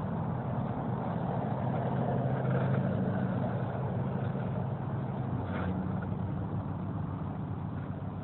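An engine running steadily with a low hum that swells slightly a couple of seconds in.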